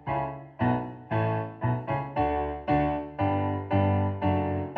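Piano music over the end credits: chords struck about twice a second, each ringing and fading before the next.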